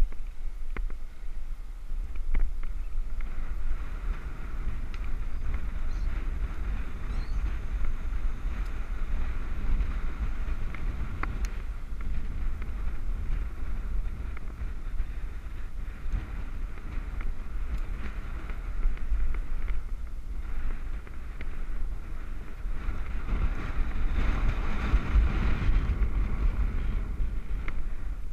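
Wind buffeting the microphone of a helmet-mounted action camera on a moving bicycle: a steady low rumble with a hiss of rolling noise, swelling louder near the end, with a few faint ticks.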